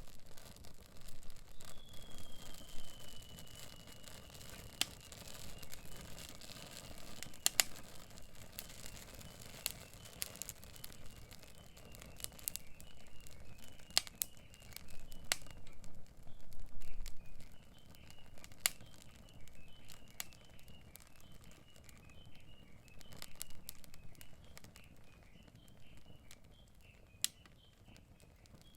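Irregular sharp clicks and pops over a light rustling, crumpling noise, with a faint high call that slides down about two seconds in and then carries on as a long run of short, steady-pitched chirps.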